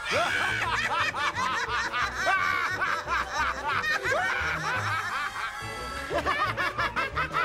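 Cartoon characters laughing heartily, a string of cackles and chuckles from several voices one after another, over background music with a low, steady beat.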